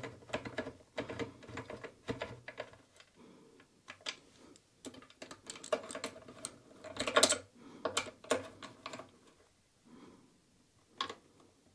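Hands tightening a nut by hand at the hub of a wooden fan frame: a run of small, irregular clicks and scrapes, busiest about seven seconds in.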